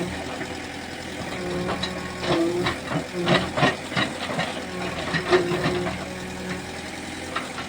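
Backhoe loader's diesel engine running steadily, with a series of sharp knocks and cracks, most of them between two and four seconds in and another a little after five.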